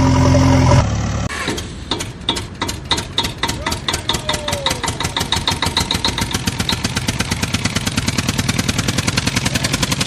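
Diesel tractor engine chugging, its beat starting slow and quickening steadily, like an engine picking up revs. A steady drone cuts off just under a second in, before the chugging starts.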